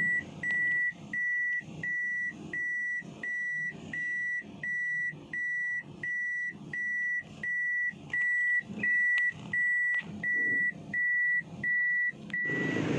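A car's in-cabin warning beeper sounding short, high, single-pitch beeps at a steady pace of a little under two a second, stopping near the end.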